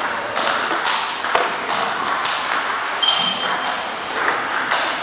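Table tennis balls clicking against tables and bats in irregular rallies, echoing in a sports hall. A short high squeak about three seconds in.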